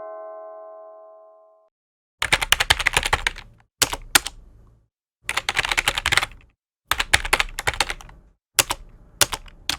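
A bell tone rings out and dies away, then a keyboard-typing sound effect: rapid key clicks in about five runs, each a second or so long, with short pauses between.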